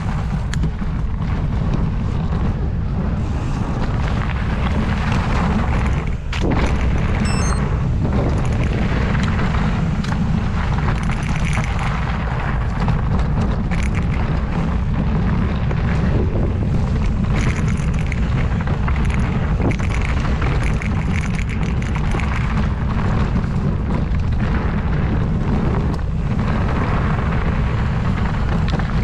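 Constant wind buffeting on the microphone during a fast mountain-bike descent, mixed with the tyres on dirt and the bike rattling and knocking over rough ground.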